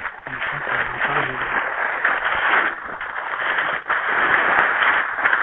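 Dry leaf litter rustling and crackling as a king cobra slides out of a cloth bag and people shift their feet on the leaves.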